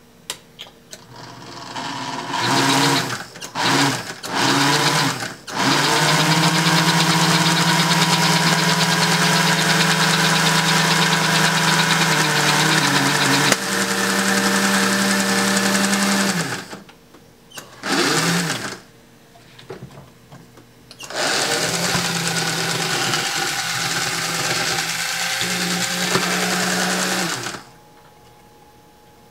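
Electric motor of an American Flyer steam locomotive running with its wheels spinning free on test blocks, powered from a repaired No. 2 transformer. It starts in a few short bursts, runs steadily for about eight seconds with its whine shifting pitch partway, stops, gives one brief burst, then runs again for about six seconds before cutting off.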